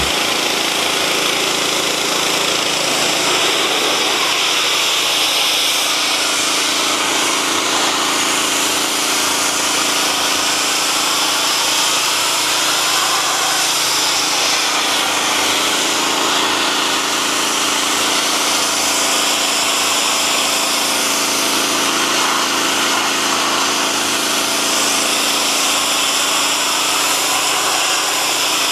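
Gas-engined hot-water pressure washer blasting through a 15-degree nozzle: a steady hiss of the high-pressure jet striking the steel, over the even running of its Kohler Command Pro 14 hp engine.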